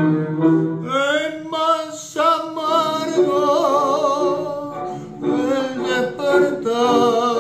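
A man singing a tango over a backing accompaniment, his voice coming in about a second in with a wide vibrato on long held notes.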